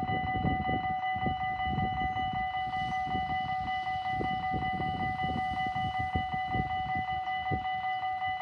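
Railway level crossing warning bell ringing continuously in rapid, even pulses, over a low irregular rumble.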